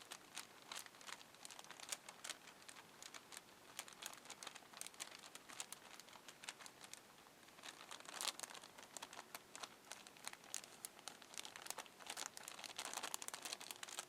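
Plastic bag crinkling and rustling in irregular bursts as it is squeezed by hand to mix muffin batter inside it, louder a little past the middle and near the end.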